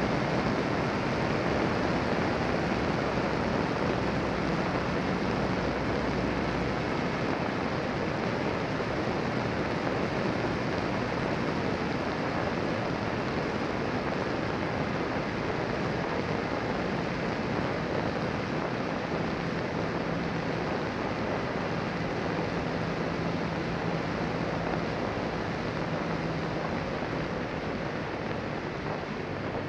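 Steady wind and road rush on the microphone of a motorcycle riding at speed, with a faint hum from the BMW F800GS's parallel-twin engine underneath.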